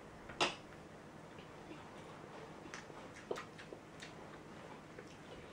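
A few light, irregular clicks of metal forks against plates during a meal, the clearest about half a second in and a small cluster around three to four seconds, over quiet room tone.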